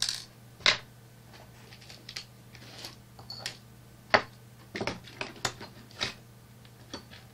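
Hand tools and small metal parts clicking and clacking on a wooden workbench board during jaw harp assembly: about a dozen irregular sharp knocks, the loudest less than a second in and about four seconds in.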